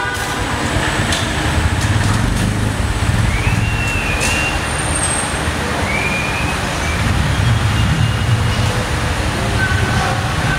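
Small motorcycle engine running steadily on the emission test lane, a low rumble that swells slightly twice.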